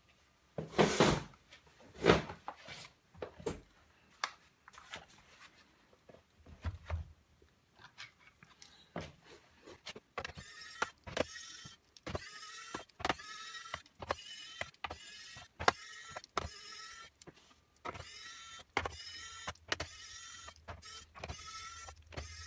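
Scattered knocks and clicks of handling the laptop case. Then, from about ten seconds in, a small electric screwdriver whines in short repeated bursts as it backs out the case screws.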